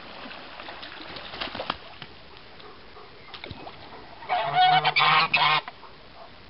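White domestic geese honking, a loud burst of a few harsh calls lasting just over a second, about two-thirds of the way through.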